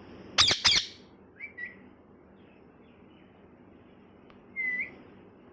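Ringneck parrot screeching twice in quick succession about half a second in, then giving a couple of short chirps and, near the end, one more short rising chirp.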